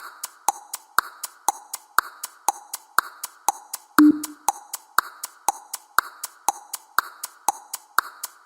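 Countdown timer sound effect: clock-style ticking at about two ticks a second, with a short low beep about four seconds in.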